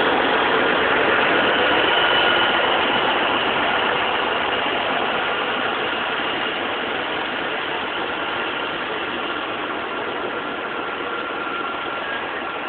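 Scania P360 truck's diesel engine idling steadily, slowly fading.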